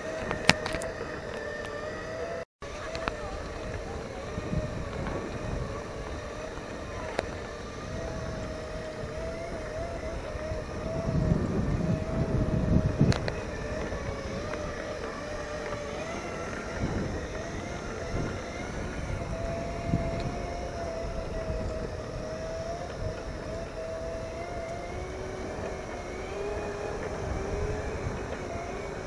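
Segway's electric drive motors whining steadily over ground rumble as it is ridden, the pitch wavering with speed and dropping lower near the end. A louder low rumble comes about eleven to thirteen seconds in.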